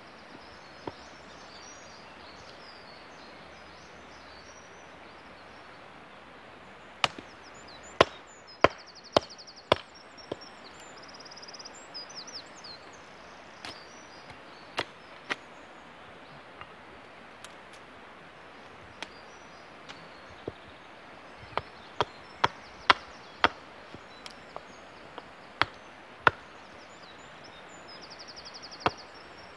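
Hultafors Classic Trekking 500 g hatchet chopping a wooden billet held upright on a stump, hewing it toward a rectangular blank. After several quiet seconds come sharp wooden chops: a quick run of strokes about a quarter of the way in, scattered single chops, then another quick run near the end.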